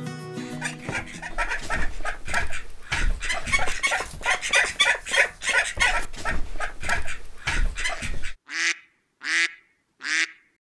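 Ducks quacking in a rapid run of short calls, then breaking off, with three single quacks spaced under a second apart near the end.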